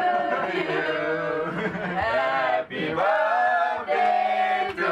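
Background music: a Malay-language song with a man singing long held notes.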